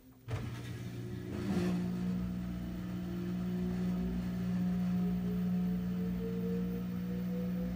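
Kenmore 41162 front-load washer in its rinse cycle starting up a loud hum abruptly, with a second tone that slowly rises in pitch as it runs. This is the unusually loud 'Eearhhhh' noise the owner hears during rinsing and suspects comes when the water drains; he doesn't know whether it is normal.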